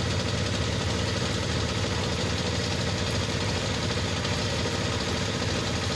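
Heavy truck engine idling, a steady low drone that neither rises nor falls.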